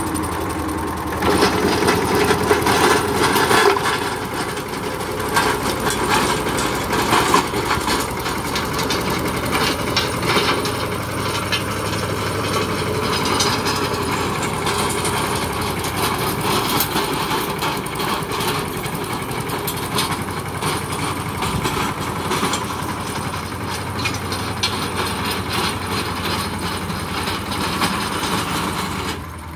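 16 hp compact tractor engine running steadily under load while driving a 24-blade rotavator through dry soil, with a dense rapid clatter throughout.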